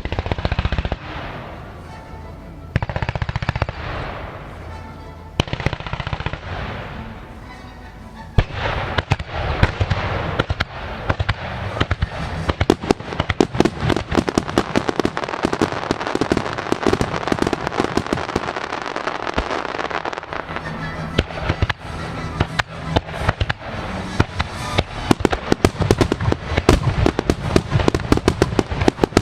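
Fireworks finale launched to music: over the first eight seconds or so, scattered bursts sound over the music; then the shells burst and crackle in a dense, rapid volley that goes on with the music still playing underneath.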